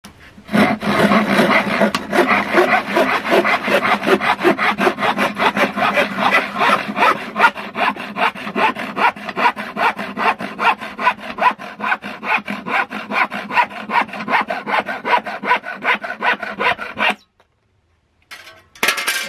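Bahco PrizeCut universal hand saw (7/8 TPI, 19-inch) cutting across a softwood board with fast, even back-and-forth strokes. The sawing stops about 17 seconds in as the cut goes through and the offcut drops away.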